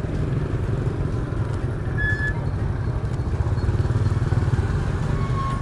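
Motorbike engine running at low speed with street traffic noise, heard from on the bike. There are two short high tones, about two seconds in and near the end.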